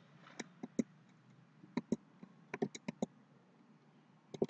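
Computer keyboard keys clicking as text is typed: a scatter of single keystrokes and short quick runs, with pauses in between.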